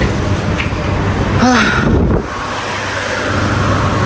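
Airport terminal background noise: a steady rumble of crowd and building noise, with a brief voice about one and a half seconds in. The rumble eases a little after two seconds and a faint steady tone hangs under it.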